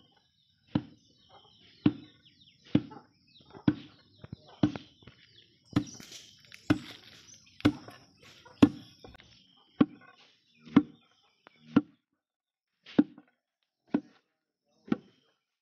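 Long wooden pestle pounding in a hollowed wooden mortar: a steady run of dull thuds, about one a second, with a short pause about twelve seconds in.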